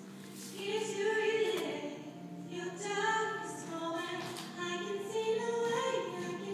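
Recorded music with a woman singing long, held notes.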